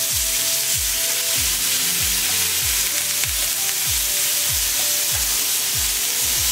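Beef slider patties sizzling on a hot oiled griddle over medium-high heat as they are turned with a spatula. Background music with a steady kick-drum beat, about one and a half beats a second, plays under the sizzle.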